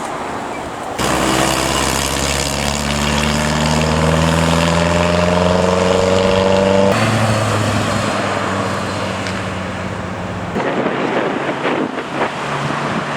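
A car engine accelerating, its pitch rising steadily for about six seconds. The sound then changes abruptly twice, to more car and traffic noise.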